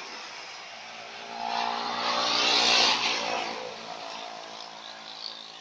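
A motor vehicle's engine running steadily, with a rushing noise that swells and fades, loudest about two and a half seconds in, as a vehicle passes.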